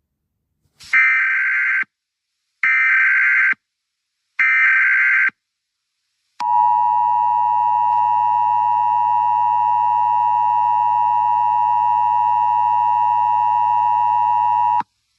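Emergency Alert System tones: three one-second bursts of SAME digital header data, then the steady two-tone EAS attention signal, held for about eight seconds before it cuts off suddenly.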